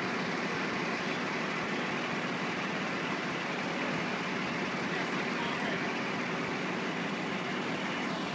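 A crane truck's diesel engine runs steadily, driving the hydraulic loader crane that holds a sailboat aloft.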